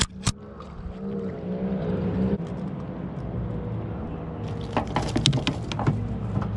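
Outboard boat motor running at low speed with a steady hum, water moving along the hull. Two sharp knocks right at the start and a cluster of clicks and knocks about five seconds in.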